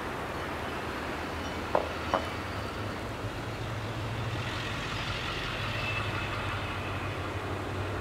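A motor vehicle moving through the snow-covered lot, its sound swelling in the middle, over a steady rushing background. Two short knocks about two seconds in.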